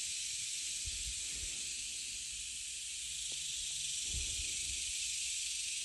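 Steady high hiss, with a couple of faint low thumps about a second in and about four seconds in.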